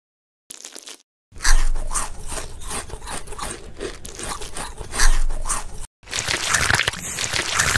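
Dry crunching and rubbing, about two or three crunches a second, as a cooked crab is grabbed and handled; it breaks off near six seconds and gives way to a denser, continuous scraping rasp.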